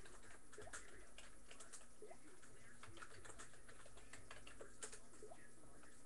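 Faint, irregular clicking of keys or buttons pressed close to the microphone, like typing on a laptop keyboard.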